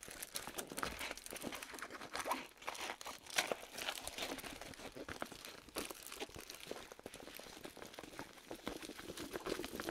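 Large rolled diamond-painting canvas being handled and unrolled, its plastic-covered surface crinkling and crackling irregularly.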